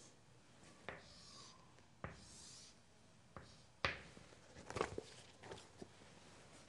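Chalk drawing straight lines on a chalkboard: short scratchy strokes, and sharp taps as the chalk meets the board, several of them close together about four to five seconds in.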